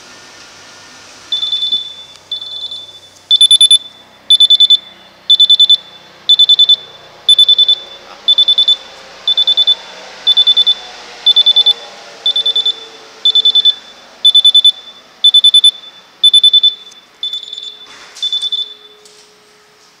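Miele Professional PT 7136 Vario tumble dryer's warning buzzer sounding over and over: short clusters of rapid high beeps, about one cluster a second, starting about a second in and stopping near the end. It is the dryer's "change load" alarm, meaning the drum is empty or the laundry is too dry.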